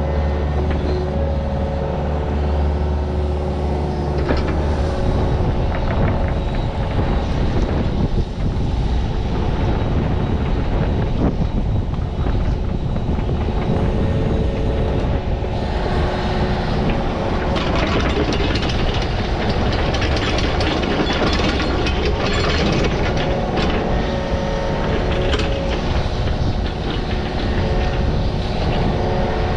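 Heavy digging machine's engine running steadily, with frequent metallic clanks and rattles. The engine note changes about four seconds in.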